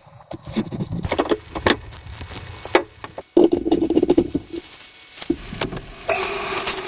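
Irregular light clicks, taps and rattles, like small objects being handled, with a steadier sound coming in near the end.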